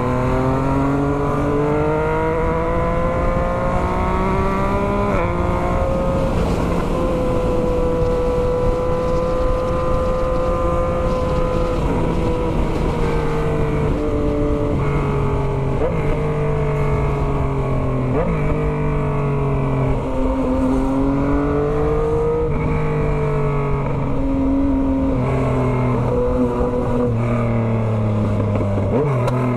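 Yamaha MT-09's 890 cc CP3 crossplane inline-triple running through a full 3-into-1 straight-pipe exhaust with no muffler, ridden hard: it pulls up in pitch for about five seconds and drops sharply at an upshift, holds steady for several seconds, then repeatedly climbs and falls with the throttle and gear changes. Wind noise runs under it.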